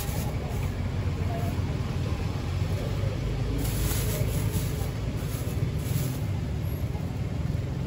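Steady low rumble of nearby road traffic. A thin plastic bag crinkles in short bursts, about halfway through and again near six seconds in, as rambutan fruits are dropped into it.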